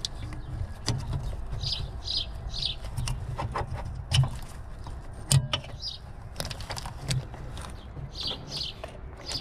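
Sharp plastic clicks and light knocks as the H7 low-beam bulb and its plastic holder are pushed free and slid out of an Opel Corsa E headlight housing. Small birds chirp in short bursts, and a low steady rumble runs underneath.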